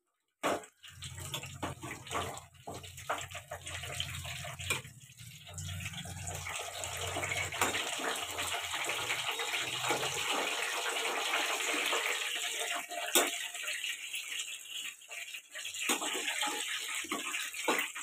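Chili fritters (mirchi bajji) deep-frying in hot oil in a small steel pan: a steady sizzle with scattered crackles. A low hum runs under it for the first ten seconds or so.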